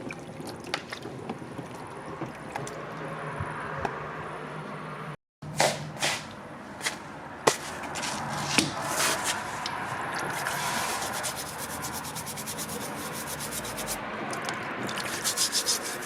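Cucumbers being rubbed and scrubbed clean by hand, a continuous rubbing and scraping with scattered knocks and clicks, and a quick run of ticks near the end.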